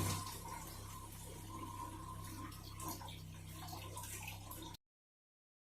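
Hot water from a faucet fed by a small electric water heater: the flow drops sharply about a quarter second in, leaving a faint trickle over a steady low hum. The sound cuts off suddenly near the end.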